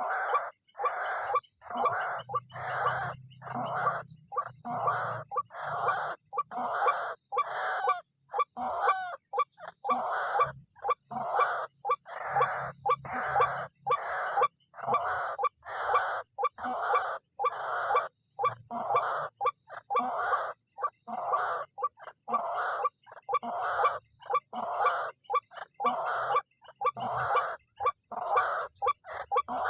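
White-breasted waterhen (ruak-ruak) calling with a harsh, croaking note repeated on and on at about two a second, the rail's territorial call used to lure wild waterhens to the snare. A steady faint high-pitched hum runs underneath.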